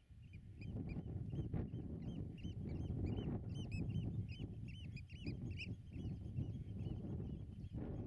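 Pied avocets calling: a quick run of short, fluty notes that rise and fall, thickest about halfway through. Under them runs a low rumbling noise that comes up under a second in.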